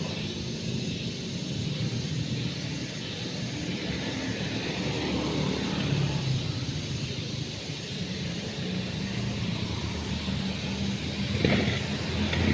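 An engine running steadily, with a brief louder sound about eleven and a half seconds in.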